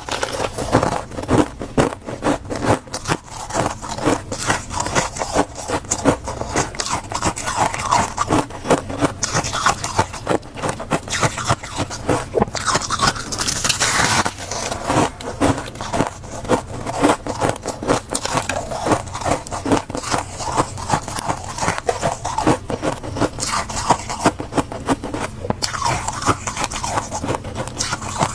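Bites and chewing of soft, powdery blue flavoured freezer frost, close to the microphone: a dense run of fine, crisp crunches with a fresh bite every so often.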